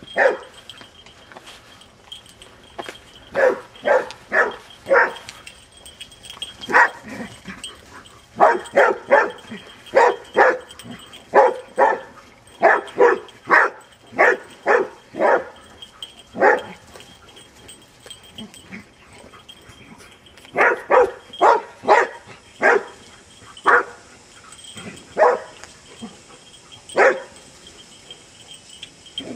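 Excited barking of dogs at play: quick runs of short, sharp barks, three to six at a time, with pauses of a second or more between runs.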